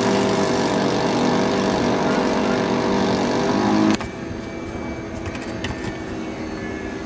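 A loud, steady motor drone with several held pitches, rising slightly just before it cuts off abruptly about four seconds in. After that comes quieter wind-like outdoor noise with a few light clicks.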